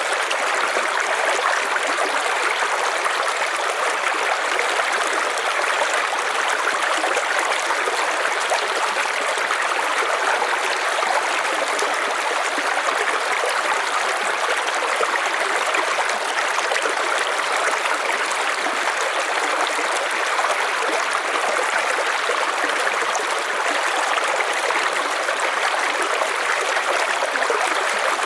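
A river stream rushing and gurgling over stones in a steady, even flow of water noise.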